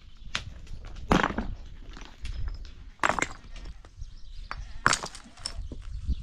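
Rocks knocking and clacking against one another as loose stones are handled and set on a dry-stone pile by hand: a string of sharp knocks, the loudest about a second in, around three seconds in and near five seconds.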